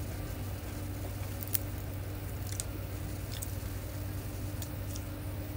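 A person biting and chewing a slice of pizza, with a few short crunchy clicks, over a steady low hum.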